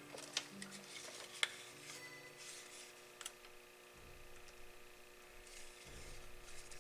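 Faint handling noise of small parts and wires: a few light clicks and some rustling as insulators are fitted onto the ends of 220-volt wires, over a faint steady hum.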